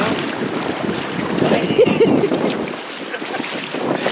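Shallow seawater sloshing and lapping, with wind buffeting the microphone.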